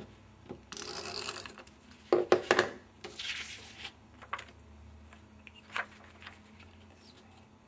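Paper and card being handled on a craft mat: two short stretches of rustling and sliding, with a quick cluster of sharp clicks and taps about two seconds in, then a few faint ticks.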